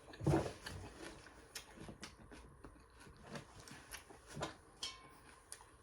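A person chewing food close to the microphone: irregular soft smacks and clicks of eating, loudest just after the start.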